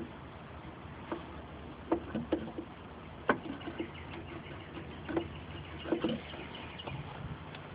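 Hands working at wiring and plastic trim in a car trunk, making a handful of small scattered clicks and taps while checking the connections for a bad one.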